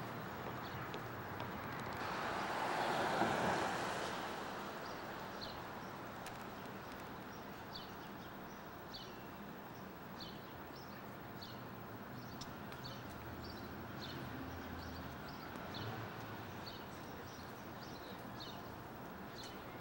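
City street ambience: steady traffic noise, with a vehicle passing close about three seconds in, and many short high chirps repeating through the rest.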